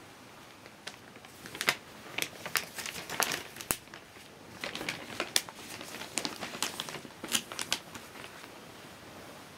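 A sheet of newspaper being handled and crinkled, making a run of sharp, irregular crackles and rustles. It starts about a second in and dies down near the end.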